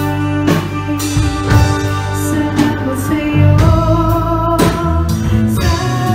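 A live band playing a song on electric guitars and a drum kit, with sharp drum hits over held guitar notes, and a voice singing along.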